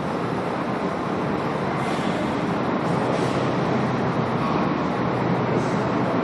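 A SEPTA Broad Street Line subway train standing at the platform, running a steady noise with a low hum that fills the station.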